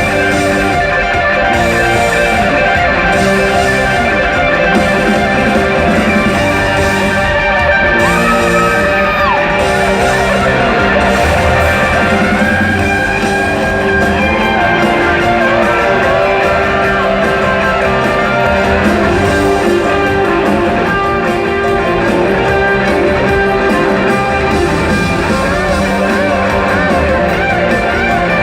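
A live rock band playing, with an electric guitar soloing in bending, sliding notes over strummed guitars, bass and drums. It is a loud live concert recording.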